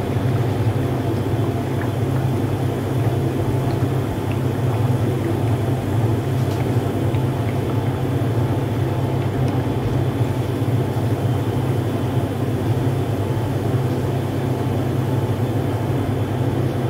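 Sweet tikkis deep-frying in a pan of hot oil, the oil bubbling and sizzling, over a loud, steady low rumble that does not let up.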